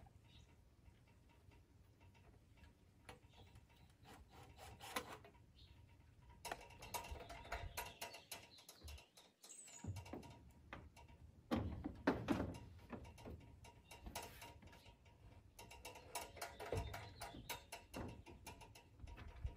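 Faint, intermittent rubbing, scraping and small knocks as an old hand saw is handled and fitted against corrugated metal barn siding from a ladder, starting a few seconds in.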